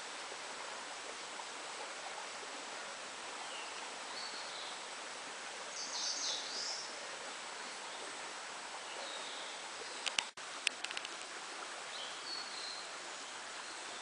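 A mountain stream rushing steadily, with birds chirping now and then; the loudest bird calls come about six seconds in. A few sharp clicks and a momentary dropout come about ten seconds in.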